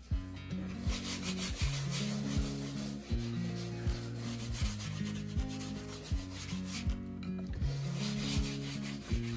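Background music with a slow, steady beat and low bass notes that change step by step. Under it, gloved hands rub paint across a stretched canvas.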